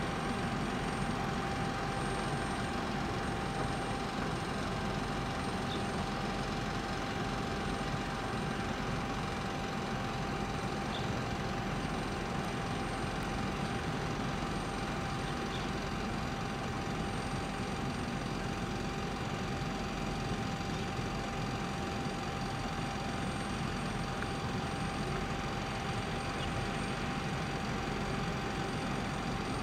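Steady mechanical drone with a constant whine, from machinery running at a parked Boeing 767.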